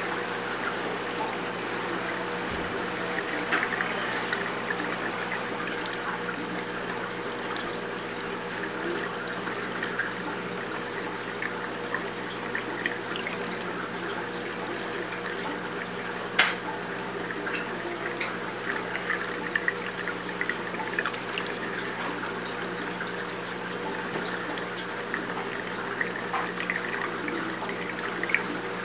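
Aquarium water circulating: a steady trickle and splash of running water over a low, steady hum, with a single sharp click a little past halfway.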